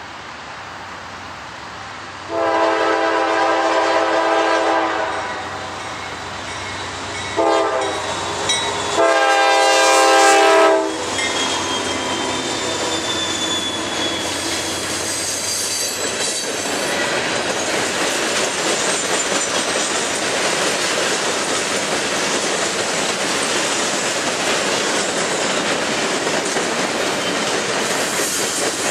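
A diesel freight locomotive's air horn sounds three times, long, short, long, as the train approaches. Then a long string of loaded coal hopper cars rolls past close by, its wheels clattering over the rail joints in a steady rumble.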